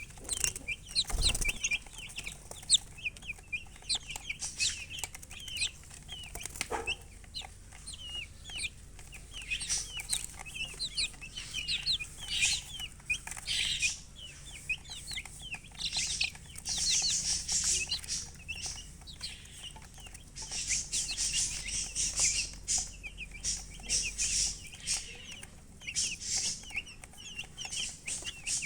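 Domestic chicks peeping continuously: many short, high chirps overlapping one another, with louder bursts now and then.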